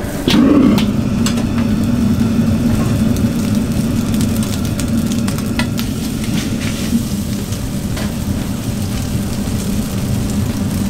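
High-output gas wok burner running at full flame: a loud, steady low rush that comes on abruptly a fraction of a second in. A few light metallic clicks sound over it.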